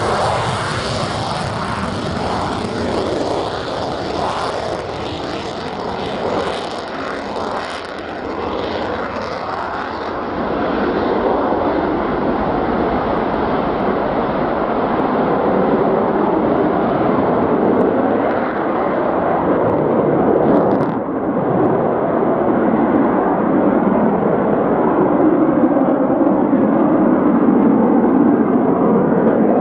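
Jet noise from a Eurofighter Typhoon's twin EJ200 turbofans at takeoff power as it rolls down the runway and climbs away. The high hiss dies away after about eight seconds, leaving a deep rumble that grows slightly louder.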